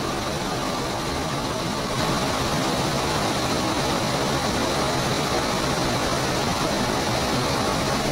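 Small waterfall pouring over rocks into a stream: a loud, steady rush of water that gets louder about two seconds in.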